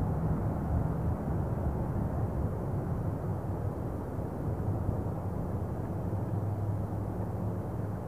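Wind buffeting a camcorder's built-in microphone, a steady flickering rumble with a faint low hum underneath.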